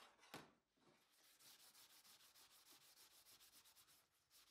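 Steel face plate being hand-sanded with an abrasive sheet: quick, even back-and-forth scraping strokes, about five a second. Just before them the plate knocks once against the workbench.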